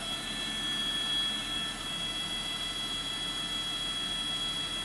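Steady whine and hiss of a news helicopter's turbine engine, several high tones held level with no change.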